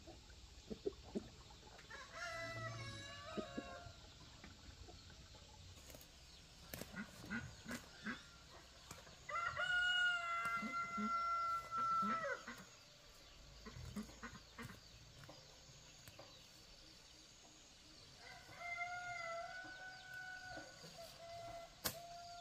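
Rooster crowing three times: a shorter crow about two seconds in, a long held crow around the middle, and another near the end, with a few scattered clicks in between.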